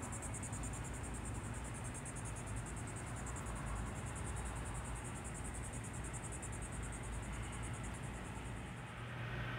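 Fast, evenly pulsing high trill of an insect such as a cricket, which stops near the end, over a steady low hum of running fans.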